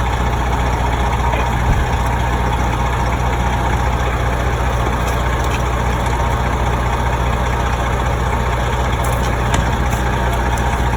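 A fire engine's heavy engine running steadily at close range, a deep, even engine sound.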